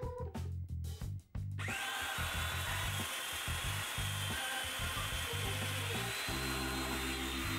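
Festool Domino joiner starting up about a second and a half in, then running with a steady high whine as it cuts a mortise in pine. Background music with a steady bass beat plays underneath.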